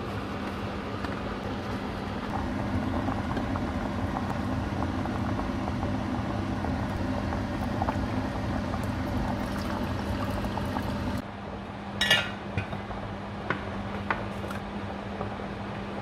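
Water pouring steadily from a glass jug into a steel saucepan of eggs, stopping about eleven seconds in. A few sharp clinks of kitchenware follow, over a steady low hum.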